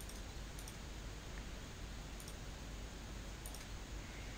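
Computer mouse button clicking, four short ticks spread over the few seconds, each a quick double tick of press and release, over a faint steady hiss.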